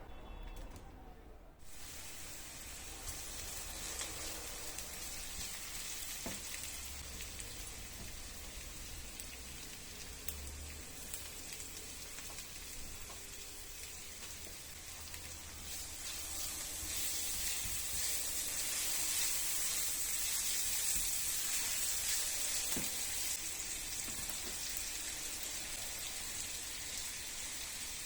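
Food sizzling as it fries in a hot pan, starting suddenly about two seconds in and growing louder about halfway through.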